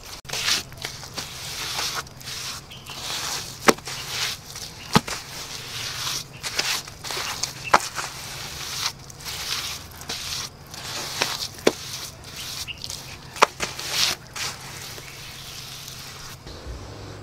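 Wet cement mortar being slapped and smeared by bare hand onto a brick wall: irregular wet scraping and squishing strokes, with a few sharp clicks among them.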